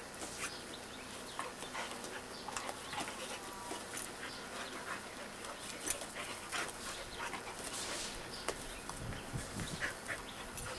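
Two dogs play-wrestling on grass: scuffling with many short, irregular noises from the dogs, and a few brief low sounds near the end.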